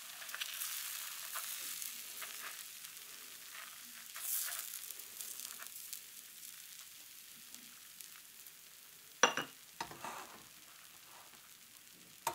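Crepe batter sizzling faintly in a hot crepe pan while a wooden T-shaped crepe spreader is swept round over it. The sizzle fades slowly, and two sharp clicks come about three-quarters of the way through.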